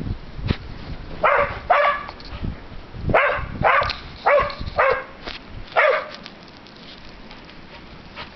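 Young blue heeler (Australian cattle dog) giving about seven short, high play barks over the first six seconds, then falling quiet.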